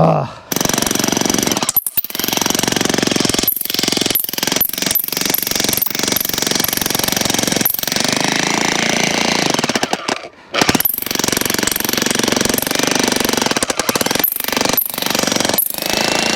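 Jackhammer hammering its chisel into a round of red oak firewood, running in long loud bursts with a short pause about half a second in and another about ten seconds in. The wood is resisting the split and the bit is not driving through.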